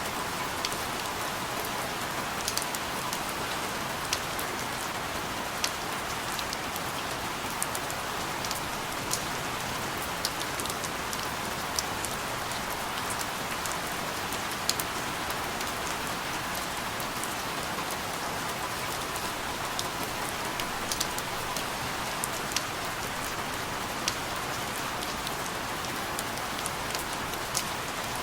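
Steady rain falling, an even hiss with the sharp ticks of single drops hitting a surface scattered through it.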